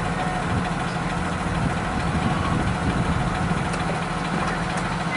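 A large engine idling steadily, a low even hum.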